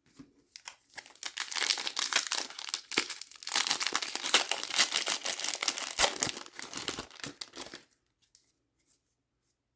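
Wrapper of an Upper Deck hockey card pack being torn open and crinkled in the hands, a dense crackling that starts just under a second in and stops about eight seconds in.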